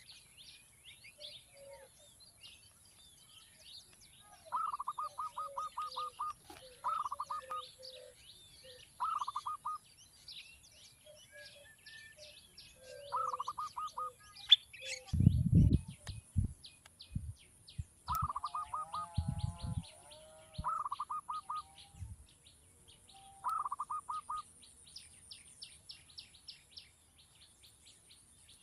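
Birds calling: short bursts of rapid chattering notes, each burst under a second, repeated every few seconds over a background of faint high ticking calls. A few low thumps around the middle.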